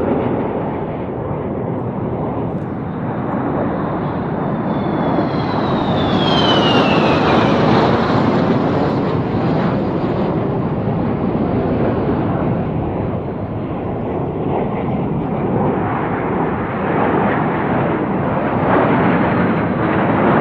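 Fighter jet's engines: loud, steady jet noise, with a high whine that falls in pitch about five to eight seconds in.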